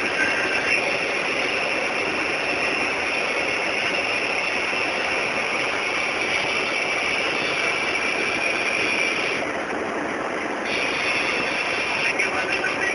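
Hail and rain falling hard, a steady dense rush of many small impacts striking surfaces.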